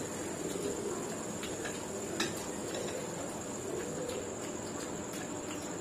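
Close-up eating sounds: chewing and the occasional crunch of crisp raj kachori shells being broken and bitten, with one sharper crack about two seconds in, over a steady background hiss.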